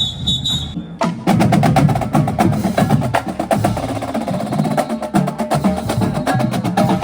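A short whistle blast, then about a second in a marching band's drumline starts playing: fast snare-drum strokes over bass drums in a steady cadence.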